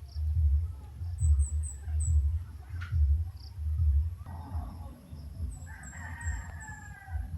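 A rooster crows once, a drawn-out call of about three seconds starting a little past the middle. Twice, a small bird gives a quick run of three or four very high chirps, over an uneven low rumble.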